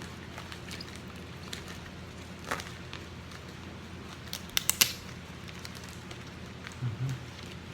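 Trading cards in plastic toploaders and sleeves being handled: scattered crackles and clicks, with a quick cluster of sharp clicks a little before five seconds in, over a steady low hum.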